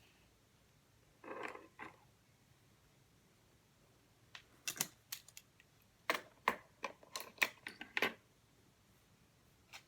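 Study-desk handling sounds: a brief rustle about a second in, then two irregular runs of sharp clicks and taps, about a dozen in all, between about four and eight seconds in.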